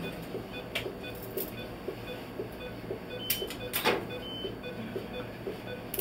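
Clicks of metal surgical instruments as gloved hands work over a dog's opened uterus during a caesarean delivery, over a faint, quick, regular beeping.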